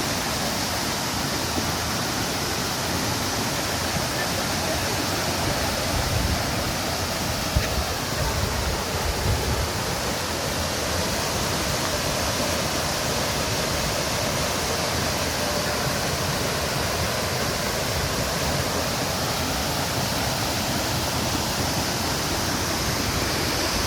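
Waterfall rushing, a steady, even roar of falling water, with a few brief low thumps about a third of the way in.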